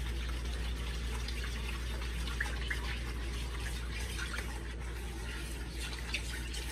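A fork stirring a thin milk-based gravy mixture in a plastic bowl: soft liquid sloshing with scattered light clicks and scrapes, over a steady low hum.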